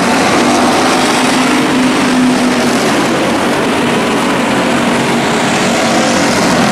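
A pack of stock cars racing on a dirt oval, many engines running hard at once in a dense, steady drone.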